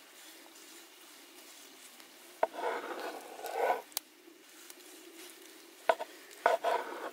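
Cleaver slicing through a seared beef roast on a wooden cutting board. There are two slicing strokes, about halfway through and near the end, each a short rasp of the blade through the meat with sharp taps of the blade on the board.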